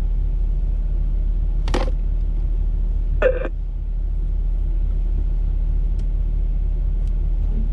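Jeep Wrangler JK engine running at low speed off-road, a steady low drone, with two brief higher-pitched sounds about two and three seconds in.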